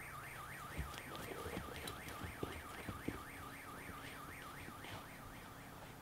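Car alarm sounding as the car is being stolen: a warbling tone that sweeps up and down about four times a second, dying away near the end. A few light knocks sound under it in the first half.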